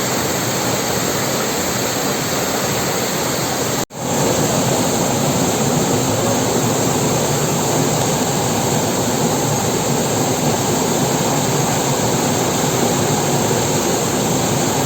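Waterfall running: a loud, steady rush of falling water, with a momentary dropout about four seconds in.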